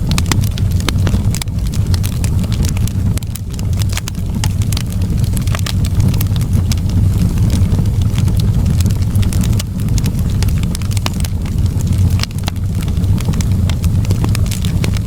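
Wood fire burning in a fireplace, crackling with many small, irregular pops over a steady low rumble.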